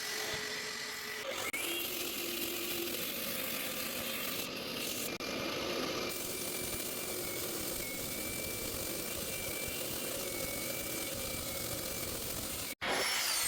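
Concrete saw running and cutting into the basement floor slab, a steady grinding noise with a held whine. It breaks off sharply near the end.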